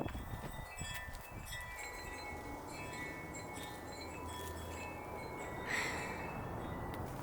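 Wind chimes ringing, several overlapping tones held for seconds, with a brief rustling noise about six seconds in.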